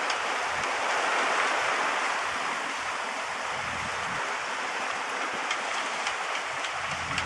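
Steady rush of water along the hull of a sailing boat under way in choppy sea, mixed with wind. A few faint ticks come near the end.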